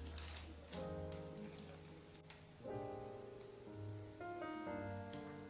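Slow background piano music, held notes changing every second or two.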